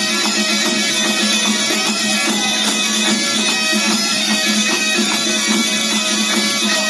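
Galician bagpipes (gaita) playing a lively folk dance tune over a steady drone, with a regular percussion beat underneath.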